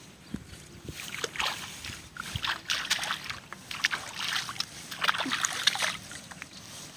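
Splashing and rustling as wet weeds are handled and pulled at the edge of shallow muddy water, an irregular run of crackly brushing noises through the middle.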